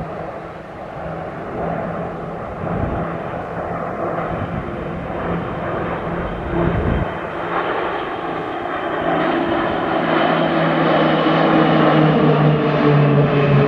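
PZL-130 Orlik turboprop trainer flying overhead, its engine and propeller droning steadily. The drone grows louder in the second half, with its tones sliding down in pitch as the aircraft passes.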